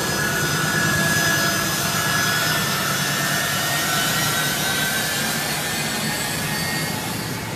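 Turbofan engines of a US Air Force C-17 transport jet running as it taxis: a steady, loud jet rush with a faint high whine that slides slowly lower in pitch.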